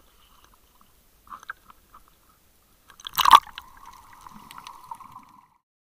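Seawater splashing and gurgling against an action camera's waterproof housing at the surface, with one loud splash about three seconds in, followed by muffled underwater bubbling.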